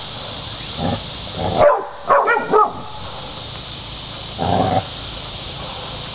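Catahoula cur dogs barking at hogs, baying them: a single bark about a second in, a quick run of barks around two seconds in, and another bark past the middle.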